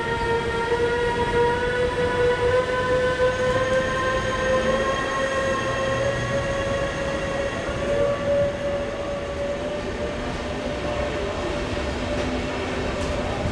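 Class 185 (Bombardier TRAXX) electric locomotive pulling away with a train of coaches, its VVVF traction inverter and motors giving a whine of several tones that rises slowly and steadily in pitch as it gathers speed, over the low rumble of the rolling train.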